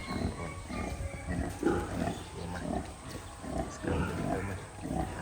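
Pigs grunting, a steady run of short low grunts a few times a second.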